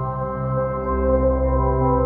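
Ambient new-age music: sustained drones and ringing tones held steadily, with a deep low hum underneath.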